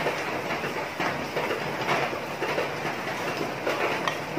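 Soda-based sauce boiling and sizzling in a frying pan around a whole chicken, a steady crackle with many small pops.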